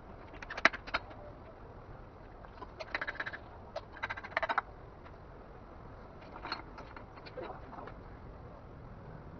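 Hand tools and metal diesel-engine parts clinking and rattling during an engine teardown. The sound comes in short bursts of rapid clicks: about half a second in, around three and four seconds in, and fainter ones later.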